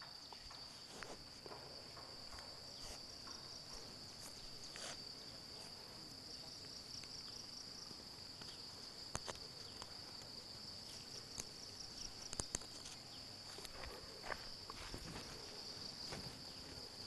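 Steady high-pitched chirring of insects, with scattered faint rustles and clicks as a cord is pulled tight and tied around a tree trunk.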